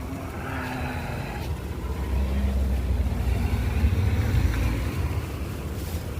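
A car's engine running close by, a low rumble that grows louder about two seconds in and eases off again near the end.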